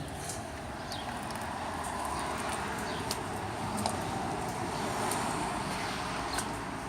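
Ryobi 1600 PSI electric pressure washer spraying: a steady hissing rush of the high-pressure water jet, with a few short high ticks scattered through it.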